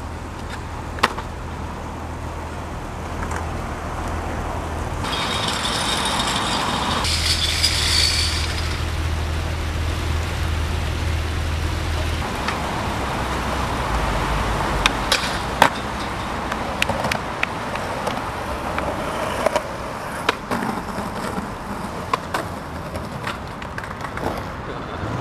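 Skateboard wheels rolling on concrete, with sharp clacks of the board scattered through, over steady city traffic noise.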